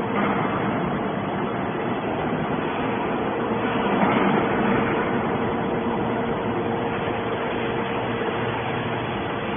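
Hydraulic scrap metal baler running: a steady machine noise with a constant whine, swelling briefly about four seconds in.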